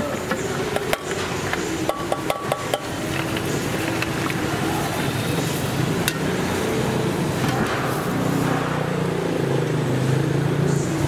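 Busy street-food court ambience: a quick run of sharp metallic clinks, as of utensils on pots or plates, about two seconds in, over a steady din of street noise, with a low hum that grows stronger in the second half.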